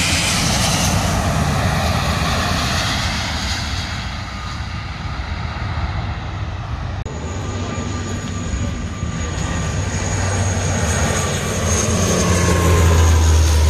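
A twin-engine jet airliner passes low on landing, its engine noise loud at first and easing over the next few seconds. After a cut about seven seconds in, an ATR 72 turboprop airliner comes in on approach: a steady engine whine over a low propeller hum that grows louder near the end.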